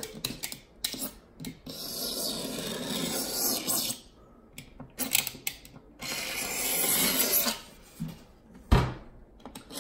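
A small hand tool scraping dirt and old finish out of the grooves of a sanded wooden cabinet door, in two scraping stretches of a few seconds each with small clicks between. A sharp knock comes near the end.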